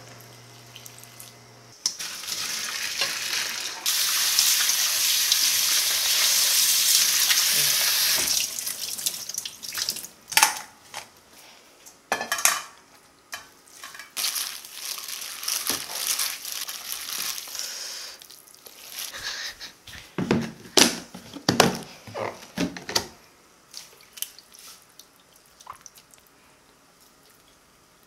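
Water running steadily for several seconds, then a string of clinks and knocks from stainless steel bowls and a mesh strainer as drained noodles are tipped into a mixing bowl, the sharpest cluster near the end.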